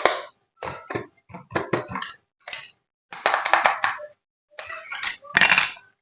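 Handling noise: a quick, irregular run of short knocks, clicks and rustles.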